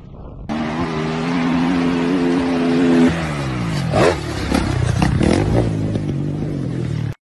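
Motocross dirt bike engine held at high revs. About three seconds in its note falls as the throttle is closed for a jump, then it is revved again in short blips. The sound cuts off suddenly near the end.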